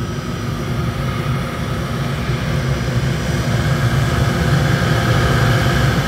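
Forced-air liquid-fuel burner firing into a tilting hearth furnace: a steady low rumble with a rushing hiss above it, getting somewhat louder in the second half.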